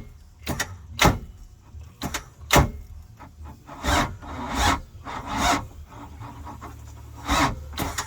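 Boat engine's starter being tried against an engine that will barely turn over: a series of sharp, irregular clicks, then several longer rasping bursts from about four seconds in. The starter pulls enough current to make the battery terminals burning hot.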